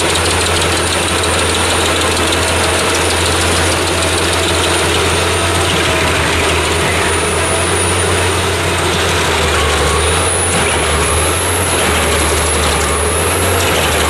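850 hp Albach Diamant 2000 mobile wood chipper running loud and steady, its engine and chipper drum under power, with a thin high whine that shifts up in pitch about ten seconds in.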